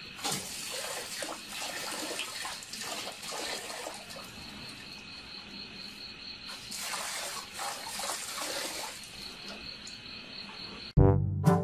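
Water from an outdoor tap splashing as a dog laps at the stream, in irregular bursts, over a steady chirping trill of crickets. Near the end it cuts suddenly to louder brass music.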